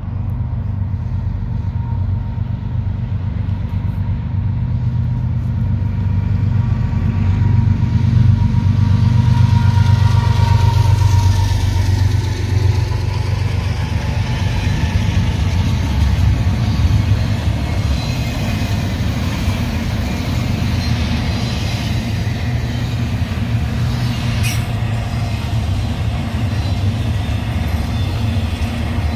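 Union Pacific diesel locomotives approaching and passing close by, the engine drone loudest about ten seconds in and dropping in pitch as they go past. After that comes the steady rolling noise of double-stack container cars running over the rails.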